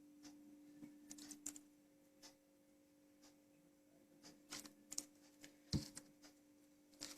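Near silence: a faint steady hum under a few faint clicks and taps of a spoon against a mixing bowl as cake batter is stirred.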